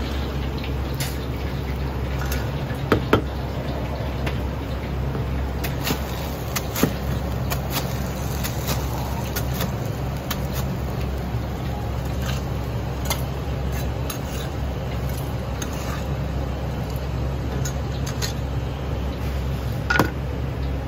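Chinese cleaver chopping crispy deep-fried chicken on a thick cutting board: irregular sharp chops with a crunch, loudest about three seconds in and again near the end. Under them is a steady low hum.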